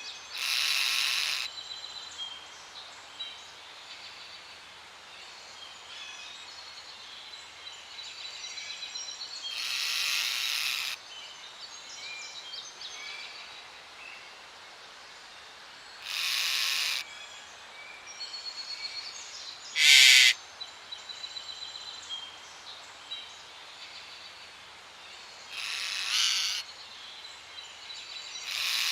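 Parrot squawking: about six harsh calls, each roughly a second long and the shortest and loudest about twenty seconds in, over a fainter background of smaller birds chirping and trilling.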